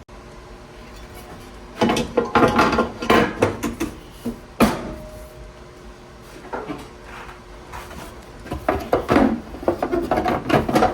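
Hand tools and metal saw parts knocking and clattering in three bunches, about two seconds in, near the middle and towards the end, while a loose bottom pulley inside a saw is realigned and tightened.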